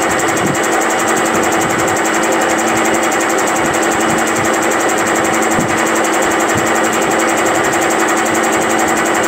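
Milling machine end mill cutting a keyway into a steel Tecumseh engine crankshaft, with a steady, rapid chatter that sounds like a Tommy machine gun.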